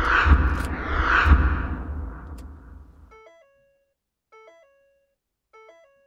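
End-screen animation sound effects: two loud whooshing swells with a deep rumble under them, peaking about a third of a second and just over a second in and fading out by about three seconds in. Then a short electronic chime of a few stepped notes repeats about every second and a quarter, three times.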